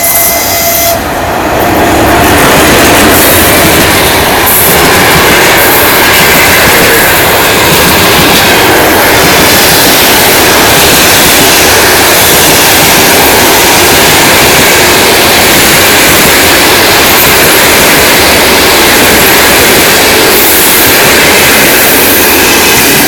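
Long-distance passenger train passing close by at speed without stopping: a loud, steady rush of wheels on rails and moving air. It sets in about a second in and holds steady from then on.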